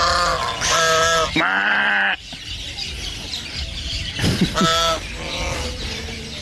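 White domestic waterfowl calling behind a fence: three loud calls in quick succession in the first two seconds, the last one longer, then another couple of calls about four and a half seconds in.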